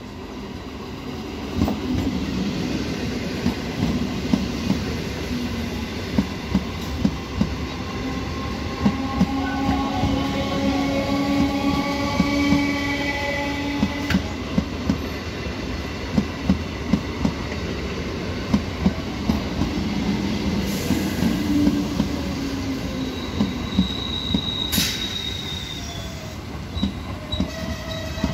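Old EMU electric multiple-unit local train passing close by: its wheels clatter over rail joints in a steady run of clicks over a continuous rumble, with thin squealing tones from the wheels at times. The sound swells about two seconds in as the coaches reach the microphone.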